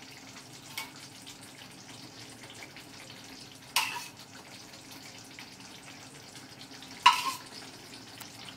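Paneer gravy simmering quietly in a pan over a steady low hum, with two sharp clinks of a spoon against the cookware, one near the middle and one near the end, as cream (malai) is added on top.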